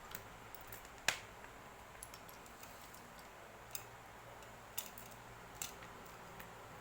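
A few irregular, sharp clicks and taps over a faint hiss. The loudest is about a second in, and the others are spaced one to two seconds apart.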